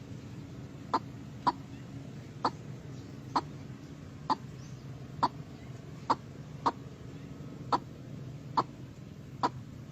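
White-breasted waterhen giving short, single clucking calls, about a dozen of them spaced irregularly roughly a second apart.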